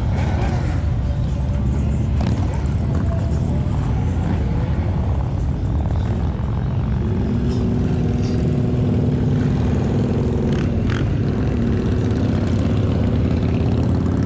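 Wind rumbling on the microphone. A steady droning hum joins about seven seconds in.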